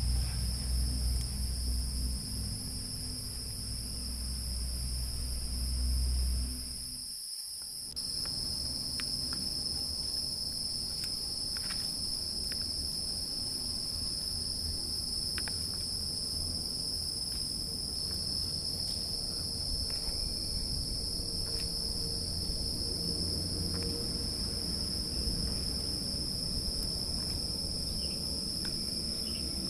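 Steady, shrill chorus of insects, a continuous high-pitched drone. A low rumble lies under it for the first several seconds and stops, and a few faint clicks come later.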